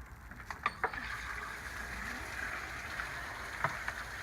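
A chicken waterer's base being scrubbed with a brush under water running from an outdoor faucet: a steady rush of water, with a few sharp knocks about half a second in and near the end.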